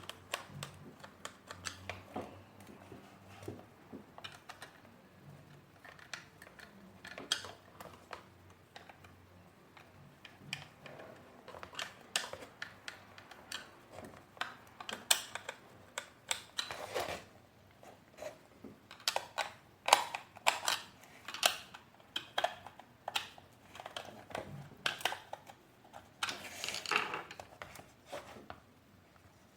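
Irregular clicks, knocks and short scrapes of hard plastic vacuum cleaner parts being handled and fitted together, sparse at first and busier from about halfway through.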